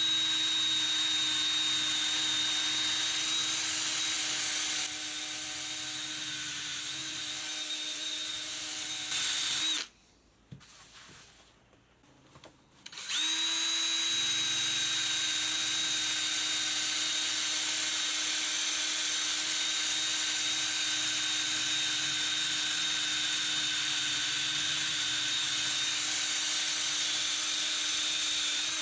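Electric drill spinning a sandpaper disc against a motorcycle's chrome fork tube, with a steady motor whine. It stops about ten seconds in and starts again about three seconds later.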